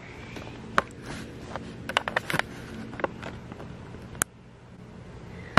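Handling noise from a handheld camera being moved: scattered light clicks and scrapes through the first three seconds and one sharp click a little after four seconds, over a steady low hum.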